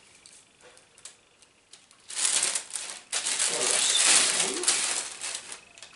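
Plastic mailing bag crinkling and rustling as a hand rummages inside it. The rustling starts about two seconds in and goes on for about three seconds, after a few faint clicks.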